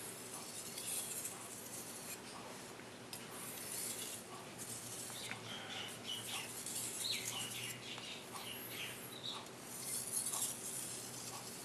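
Gyuto knife blade stroked back and forth over a wet whetstone, a run of hissy scraping strokes for the final touch-up of the edge.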